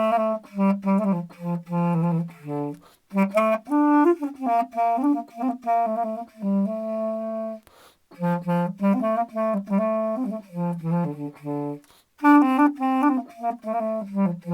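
Clarinet played in its low register with a 'ka-the' tonguing and the reed set slightly above the mouthpiece tip, giving a wailing sound. Three phrases of quick tongued notes, each ending on a held note, with short breaks between them.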